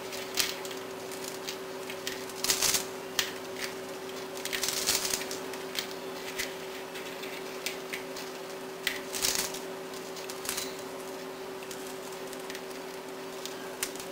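Crispy cooked bacon being crumbled by hand over a plastic cutting mat: scattered brittle crackles and snaps, some in short quick clusters.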